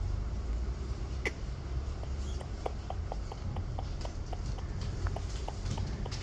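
Lovebirds feeding: small sharp clicks at an irregular pace, a few a second, over a steady low hum.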